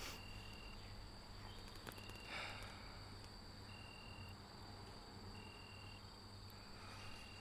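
Faint cricket chirping at night: a short high-pitched trill repeating evenly about every second and a half, over a low steady hum.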